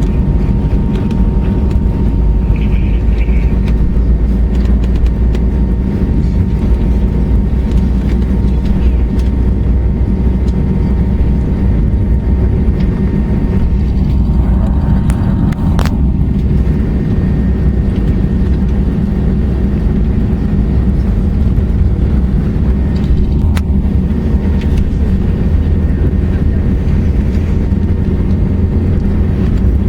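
Airbus A320-232 cabin noise from its IAE V2500 turbofan engines: a loud, steady rumble with faint steady whining tones above it.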